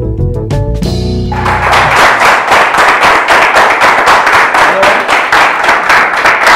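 Quiz show's theme music: a keyboard melody over a heavy bass, giving way about a second in to a loud, dense noisy wash over a steady beat.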